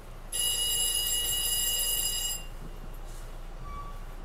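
Electronic warning tone on a commuter rail car, one steady high beep held for about two seconds, sounding over the low hum of the car standing in the station: the alert that the doors are about to close.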